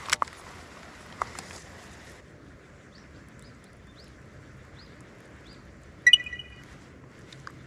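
Wild birds calling: a run of short, rising chirps, then one loud, brief call about six seconds in. A couple of sharp clicks sound near the start.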